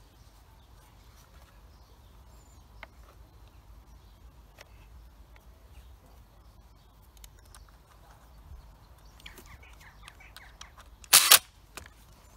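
Faint plastic clicks and handling noises as the air filter is fitted back onto a Husqvarna 236 chainsaw, then a short, loud burst with two quick peaks about eleven seconds in.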